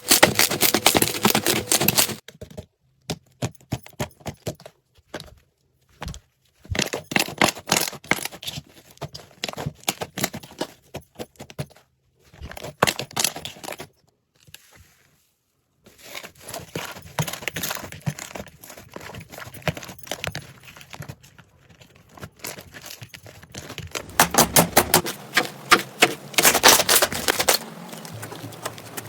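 Hands squeezing and poking slime: dense runs of sticky crackles and small pops, broken by a few short silences.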